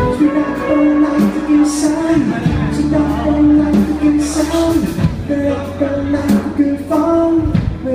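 Live band music: a man singing long held notes over strummed acoustic guitar, electric bass and drums.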